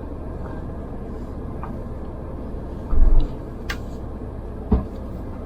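Mahindra Thar running at low speed, a steady low engine and road rumble heard from inside the cabin, with a short loud low thump about three seconds in and a couple of sharp clicks near the end.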